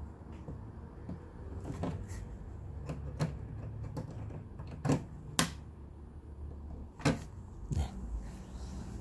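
A few sharp clicks and knocks, at uneven intervals, of hands and a tool working on a TV main board's metal HDMI connector, pressing the loosened connector tighter so it grips the plug again.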